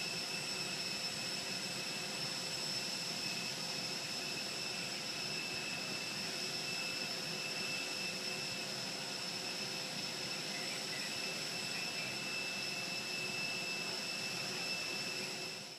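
Steady whine and rush of a parked jet airliner's turbine, with high-pitched whining tones over an even roar that doesn't change.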